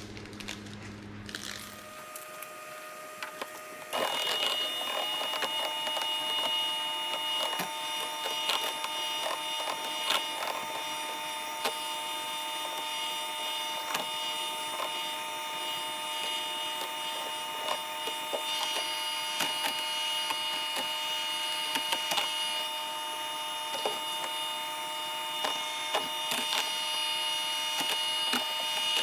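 Electric hand mixer switched on about four seconds in, then running steadily with a whine as its beaters whisk gelatin into a plastic tub of water, with scattered clicks throughout.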